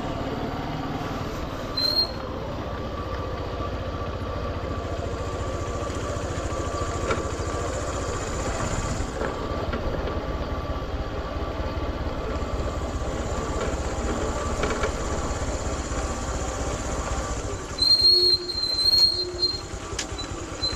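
Motorcycle engine running steadily at low speed, with a low rumble and tyre and wind noise as it is ridden over a rough dirt road. Near the end, a few loud, short, high-pitched sounds cut in over the engine.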